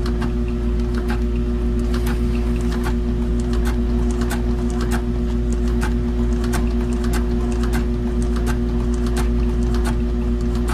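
Industrial sewing machine stitching through thick layered strips of leather: a steady motor hum with quick, uneven clicking from the needle and feed.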